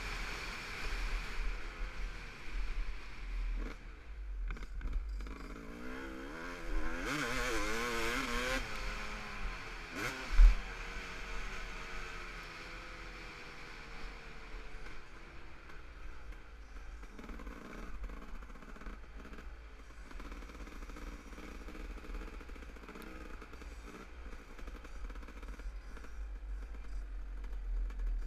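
Dirt bike engine running under way on a dirt track, revving up and down about six to nine seconds in, over a steady low rumble. One sharp loud knock about ten seconds in.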